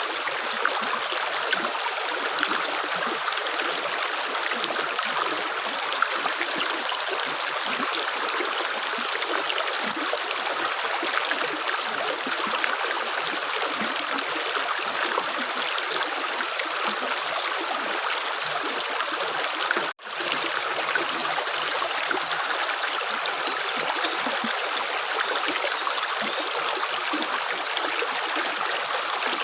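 Running water, like a small stream, babbling steadily with many small splashes. The sound cuts out for a split second about twenty seconds in, then carries on unchanged.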